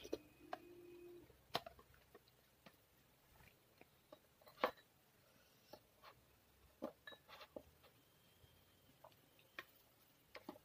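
Faint, scattered clicks and taps of eating by hand: fingers working rice on a ceramic plate and a ceramic soup spoon touching the bowls, the sharpest tap about four and a half seconds in.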